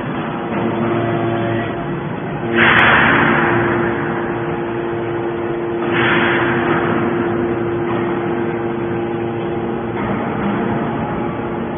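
Hydraulic scrap metal baler running with a steady hum, with two sudden loud rushing bursts, about two and a half and six seconds in, each fading over about a second.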